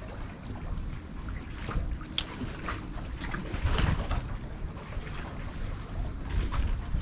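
Wind buffeting the microphone, a low uneven rumble, with harbour water lapping and splashing against the wharf in irregular small slaps.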